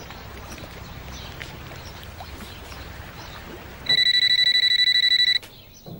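Light outdoor background with birds chirping, then, about four seconds in, the loud electronic ring of a cordless phone: one high, rapidly pulsing tone about a second and a half long that cuts off abruptly.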